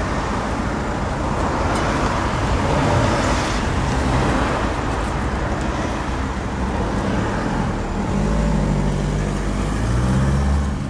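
Road traffic noise: a steady rush of vehicles, with a low engine hum coming in for the last few seconds.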